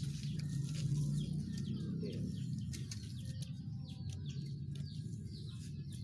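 Chickens clucking faintly in the background over a steady low rumble, with a few light clicks.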